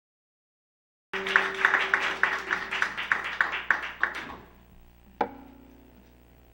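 A small audience clapping, a few hands in a steady rhythm of about three claps a second, starting abruptly about a second in and dying away after about three seconds. A single classical guitar string is then plucked once and rings briefly while the guitar is being tuned.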